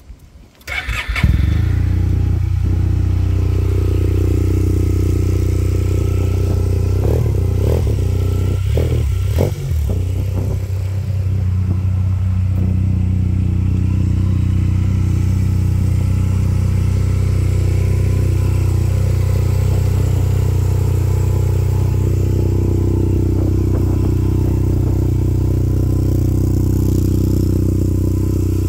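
A 2002 Honda Silverwing FJS600 scooter's parallel-twin engine starts about a second in, then idles steadily. Its note wavers with a couple of short revs around eight to ten seconds in.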